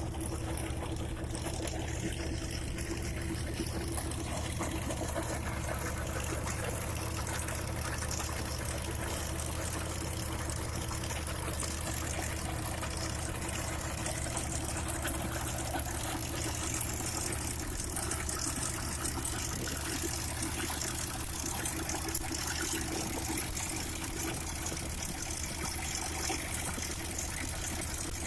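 Trencher machine digging in hard soil: a steady engine drone with a continuous gritty rushing of cut soil over it, unchanging throughout.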